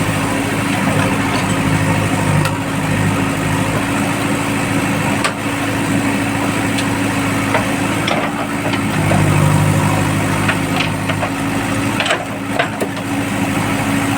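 JCB backhoe loader's diesel engine running steadily, with scattered sharp clicks and knocks that come more often in the last few seconds.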